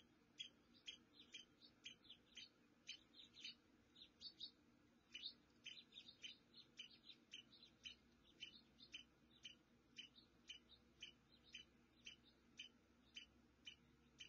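Short, high chirps from a small animal, repeated steadily at about three a second.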